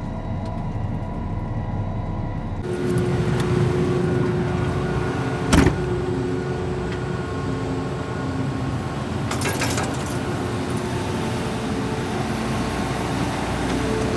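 Combine engine running steadily, getting louder with a steady hum about three seconds in. A single sharp knock comes about five and a half seconds in, and a brief rattle near ten seconds.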